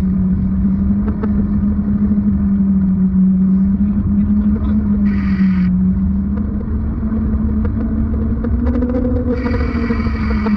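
Muffled road noise heard through a GoPro waterproof case while cycling: a steady low drone over a rumble, with two brief bursts of hiss about five and nine seconds in.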